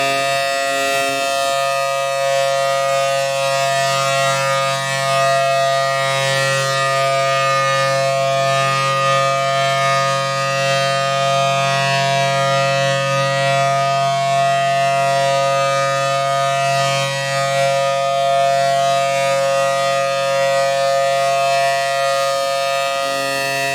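Federal Signal Thunderbolt 1000T outdoor warning siren sounding its full alert: a loud, steady, held tone from its 4/5-port chopper, which gives two notes at once.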